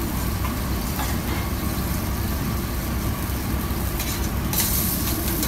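Steady low mechanical rumble of a commercial kitchen's gas burners and equipment, with a few light clicks of metal tongs against the pan as chicken is turned in a paella pan, and a brief brighter hiss near the end.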